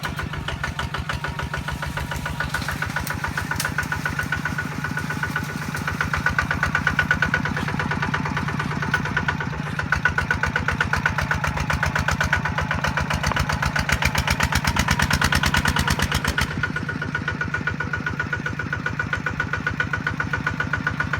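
Kubota RT155 single-cylinder diesel engine running with a steady, rapid beat, growing louder for several seconds in the middle.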